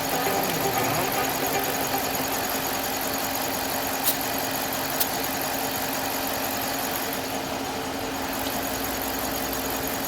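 Smittybilt 2780 12-volt air compressor running steadily, pumping a truck tire up toward 50 psi, with a couple of light ticks about midway.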